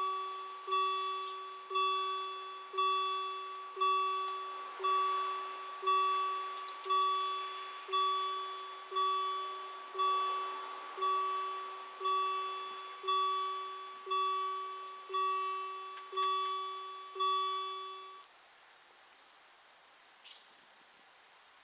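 Level-crossing warning bell striking about once a second, each stroke ringing and fading before the next, warning road users while the barriers come down for an approaching train. The ringing stops about 18 seconds in, once the barriers are down.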